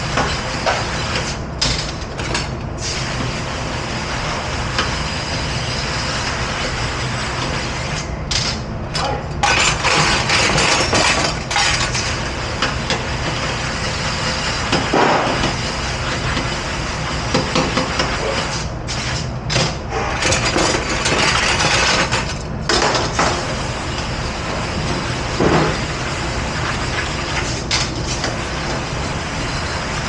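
Commercial pre-rinse sprayer blasting water over a pile of stainless steel cutlery on a steel counter, with the metal clattering. The spray cuts off briefly a few times. A steady low hum runs underneath.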